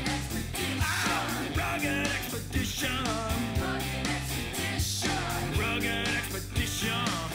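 Rock music with a steady drum beat, guitar and a singing voice.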